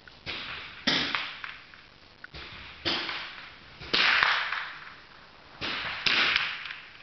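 Target rifle shots on a shooting range: about seven sharp cracks, several in quick pairs about half a second apart, each fading out in a short echo, the loudest about four seconds in.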